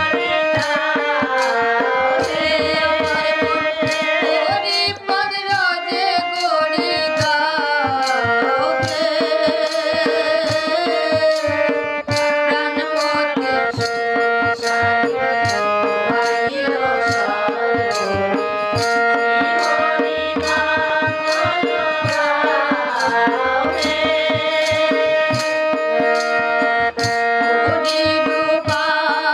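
Bengali devotional Hari sangeet: a singer's voice over hand drums and melodic accompaniment, with a steady beat.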